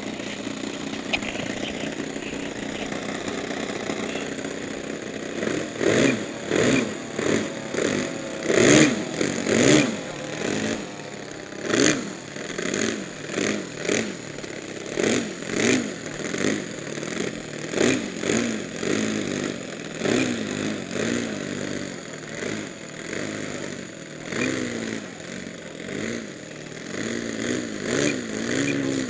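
Twin engines of a large RC P-38 Lightning model running on the ground. From about five seconds in they are revved up and back down again and again, in short blips about a second apart, before takeoff.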